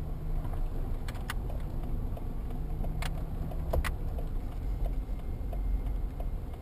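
Car driving slowly, heard from inside the cabin: a steady low rumble of engine and tyres, with a few light clicks or rattles.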